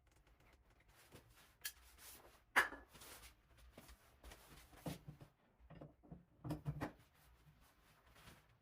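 Scattered small clicks, knocks and scrapes of hand tools working on a tightly seated shower valve cartridge. The sharpest click comes about two and a half seconds in, and there is a cluster of knocks near the end.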